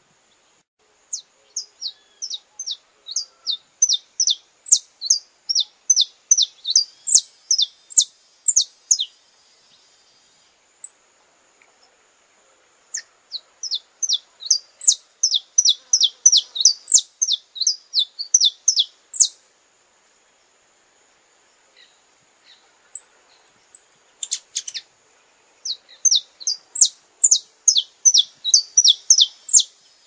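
Saffron finch (canário-da-terra) singing: three bouts of quick, high chip notes that each slide sharply downward, about three a second, with pauses of a few seconds between bouts.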